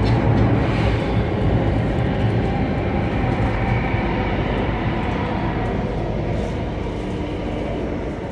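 Singapore Circle Line MRT train running through a tunnel, heard from inside the carriage: a steady low rumble of wheels and running gear that slowly grows quieter.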